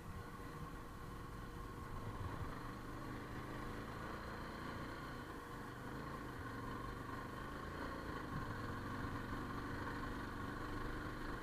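Motorcycle engine running steadily while riding, its level and pitch holding even.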